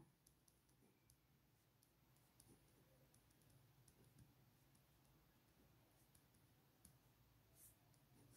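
Near silence, with only faint scattered ticks of a ballpoint pen writing on paper.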